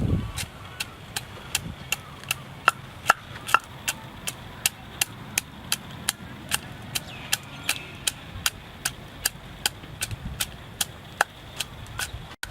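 A knife chopping on a cutting board in a steady rhythm, about two to three strokes a second.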